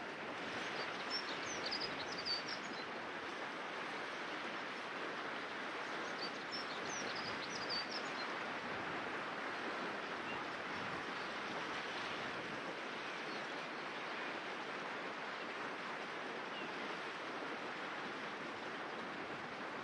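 River water flowing steadily over a stony bed, with a small bird giving a few short high chirps about a second in and again around six seconds in.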